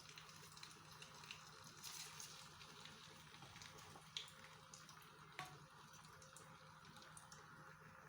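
Chicken pieces frying in oil in a pan: a faint, steady sizzle with a few light pops.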